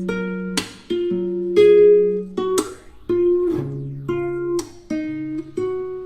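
Background music: an instrumental stretch of a song, with plucked guitar notes and strummed chords about twice a second.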